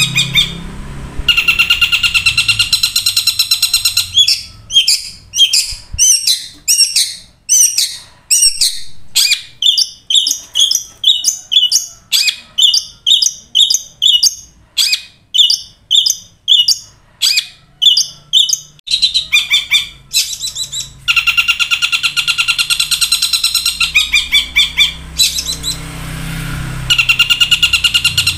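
Caged long-tailed shrike (cendet) singing loudly in a mimicked song mixing the calls bird keepers know as 'kuntilanak' and 'tengkek buto'. A harsh buzzing trill opens it. About four seconds in it changes to a long run of short repeated notes, nearly two a second, and after about twenty seconds the buzzing trill returns.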